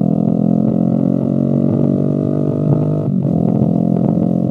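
Honda CBR250RR parallel-twin engine running through an Akrapovic exhaust under acceleration, with a loud, buzzy drone as the revs build. About three seconds in the note breaks and drops briefly, as with an upshift, then pulls on.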